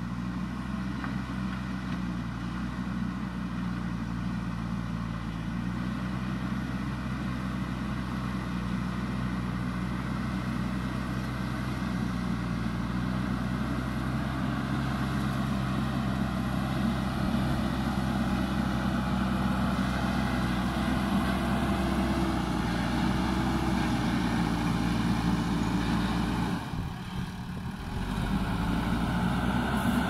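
Diesel engine of a JCB 3DX backhoe loader running steadily under load as it pushes and levels soil with its front bucket, the engine note climbing a little in the second half. The sound drops briefly about three-quarters of the way through, then the engine picks up again.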